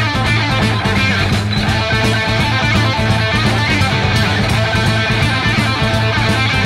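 Hard rock band playing an instrumental passage, with electric guitar over a steady bass line and drums.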